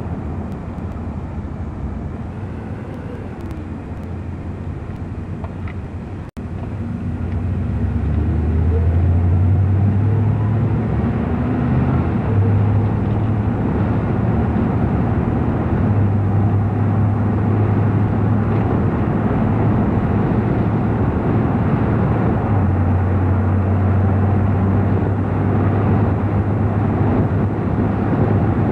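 Car driving through city traffic, heard on a camcorder microphone: a steady rush of engine and road noise. There is a short break in the sound about six seconds in. After it the engine speeds up and the running stays louder, with a low steady hum.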